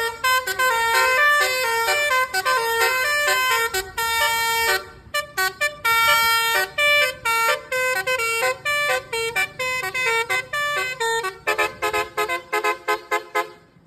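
Indonesian 'telolet' bus horn, a multi-tone musical air horn, playing a melody of held and short stepped notes, ending in a run of quick staccato notes.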